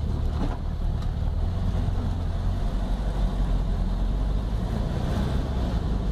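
1969 Volkswagen Beetle's air-cooled flat-four engine running steadily, a low even rumble with no change in pitch.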